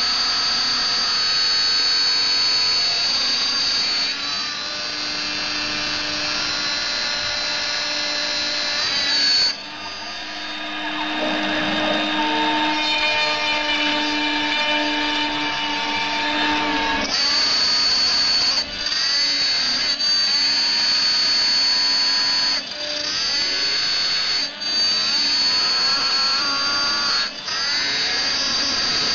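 A CNC-converted Proxxon MF70 mini mill cutting 4 mm plywood: the spindle motor whines steadily at a high pitch as the end mill cuts the wood. The stepper motors whine in gliding pitches as the table speeds up and slows down. The sound changes abruptly several times, with short dips where the cutter changes direction.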